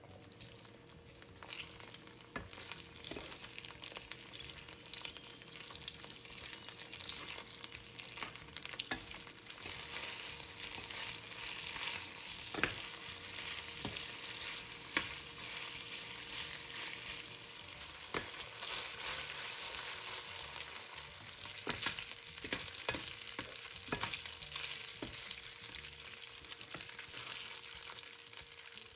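Cornstarch-coated chicken pieces sizzling in oil in a nonstick frying pan, the sizzle swelling about a second and a half in. Metal tongs click and scrape against the pan now and then as the pieces are turned.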